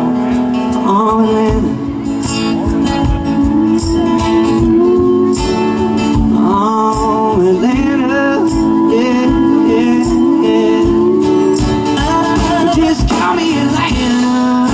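Live country band playing at full volume: strummed acoustic guitar and a drum kit keeping a steady beat, under a sung melody of long held notes that slide between pitches.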